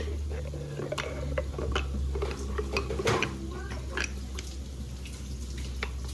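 Thick avocado smoothie with uncrushed ice chunks being tipped from a jug into a glass: a run of small clicks and knocks as the ice and jug tap against the glass. A steady low hum runs underneath.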